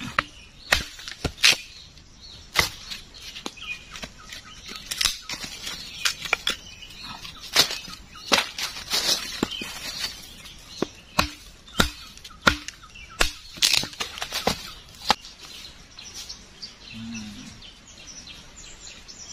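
Hatchet chopping small pieces of wood on a log: sharp chops at irregular intervals, about twenty in all, thinning out after about fifteen seconds to softer rustling.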